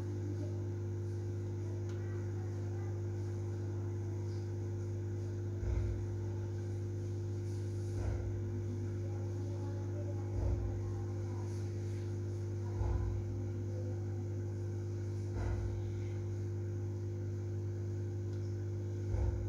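Steady electric hum of an aquarium pump running, with a soft low thump every two to three seconds.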